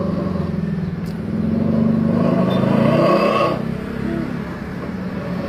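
Gasoline car engine running through an aftermarket 'suos ngorok' (snoring-tone) exhaust muffler. It idles, is revved up about a second and a half in and held for about two seconds, then drops back to idle.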